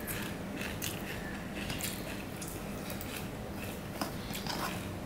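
A hand mixing and mashing rice with fried egg and onion on a stainless steel plate: soft squishes and a scatter of light clicks, over a steady low hum.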